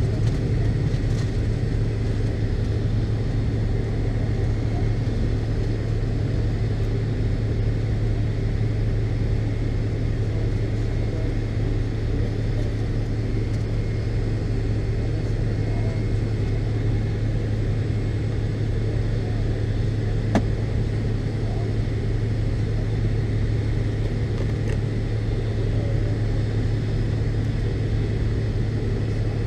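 Steady low drone inside the cabin of a McDonnell Douglas MD-82 airliner, with a single click about twenty seconds in.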